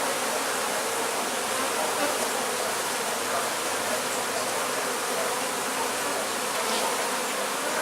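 Honeybees buzzing steadily en masse, a dense cluster of them on comb being pulled from their hive.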